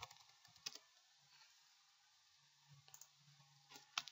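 A few faint, sparse clicks of a computer's keys and mouse button over near silence, with a small cluster near the end.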